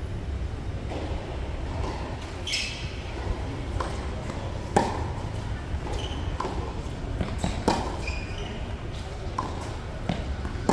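Tennis ball being hit and bouncing during play: an irregular string of sharp pops and knocks, the two loudest about five and eight seconds in, over a steady low rumble.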